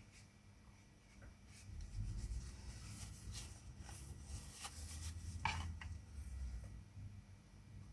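Faint scratching and rubbing strokes of a brush or paper on a watercolour artboard, several short strokes clustered in the middle.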